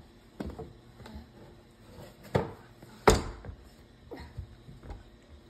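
A few separate knocks and thumps from a cardboard box and a toddler's hands bumping against wooden kitchen cabinets, the loudest about three seconds in.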